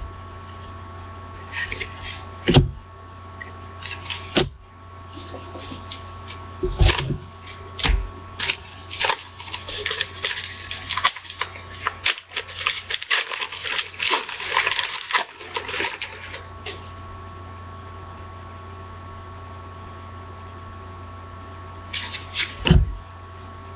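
Handling of trading cards and a foil card pack: a few sharp clicks and knocks, then several seconds of dense crinkling and tearing as the pack wrapper is ripped open. A steady low hum runs underneath.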